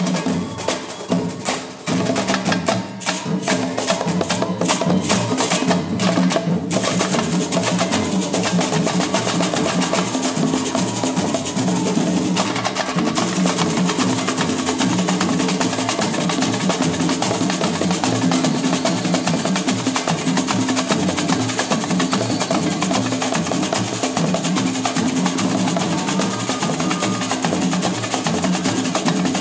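Live samba percussion: two tall hand drums played in a driving rhythm, with sharp clacking accents from a small hand-held percussion instrument. A run of rapid sharp strikes comes between about two and seven seconds in, then the groove continues steadily.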